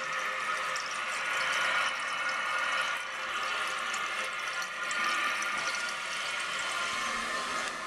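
Original float-operated ballcock of a 1991 Artesian Aquamiser toilet refilling the tank after a flush: a steady rushing hiss of water with a faint steady whine in it.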